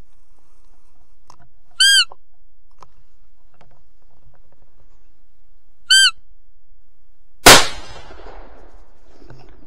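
A roe deer lure call blown twice, each a short high peep that rises and falls, about four seconds apart, to call in a roebuck. About seven and a half seconds in comes a single loud .223 rifle shot that rings off.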